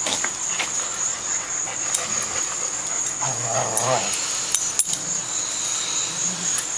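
Golden retrievers making dog sounds, with a short pitched vocal sound from a dog a little past three seconds in, over a thin steady high tone and scattered clicks.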